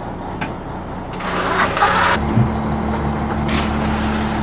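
A lobster boat's engine runs steadily while waves splash against the hull. About two seconds in, the engine sound steps up and gets louder.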